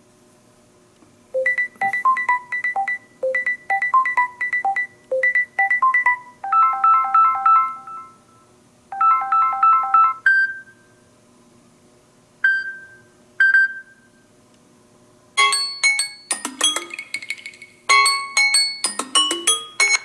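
Samsung Galaxy S21 ringtone melodies: short, bright electronic notes. A quick phrase comes three times, then two held chords, then three single pings, and near the end a faster, busier run of notes.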